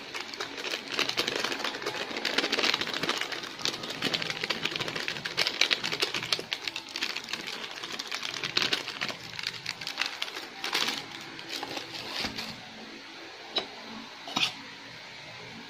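Plastic bag crinkling and rustling as flour is shaken out of it into a bowl. Near the end the rustle stops, and a metal spoon taps the bowl twice.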